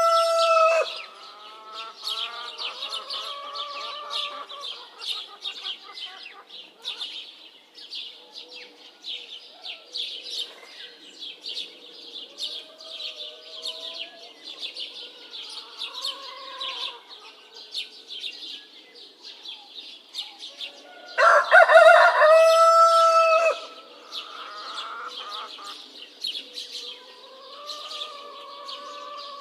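Rooster crowing twice: the tail of one crow in the first second and a full crow of about two seconds around two-thirds of the way through. Behind it, small birds chirp continuously and softer, lower bird calls come and go.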